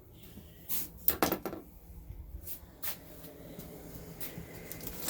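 Cardboard box and packaging being handled: a few scattered knocks and scrapes, with a short cluster about a second in.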